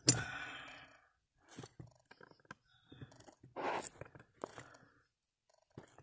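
Small metallic clicks and clinks of a chrome brake-pushrod clevis and its pin being handled, with a sharper click at the very start. A single breath out about three and a half seconds in.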